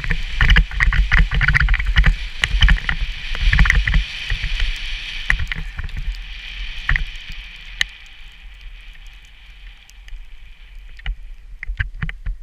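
Skis sliding and scraping over snow at speed, with wind rumbling on the camera's microphone and frequent short knocks. The noise eases off about eight seconds in as the skier slows down.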